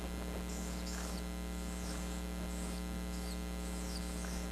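Steady electrical mains hum, with faint strokes of a marker pen writing on flip-chart paper.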